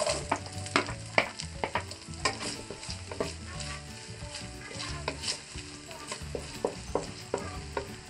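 Chopped onion tipped into hot oil with garlic in a non-stick wok, sizzling, while a wooden spatula stirs and scrapes it around the pan with repeated sharp clicks and taps, the loudest about a second in.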